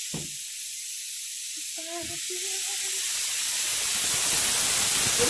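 Pressure cooker whistle venting steam as it cooks dal khichdi: a steady hiss that grows louder through the second half.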